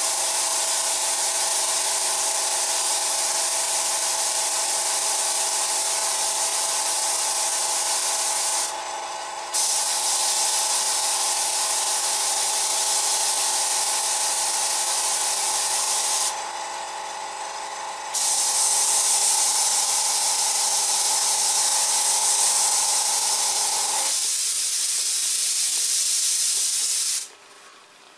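Airbrush spraying grey paint: a steady hiss of air from the nozzle, broken twice by short pauses, each about a second and a half long. Under the hiss, the steady hum of the airbrush compressor runs through the pauses and cuts off a few seconds before the spraying stops.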